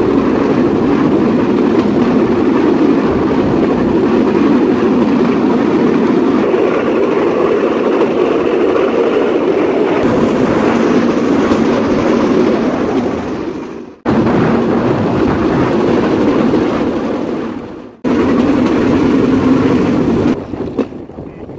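Bamboo train (norry) running along the rails: the steady drone of its small engine mixed with wheel and rail noise and wind. It cuts out sharply for a moment twice, and the sound drops off near the end.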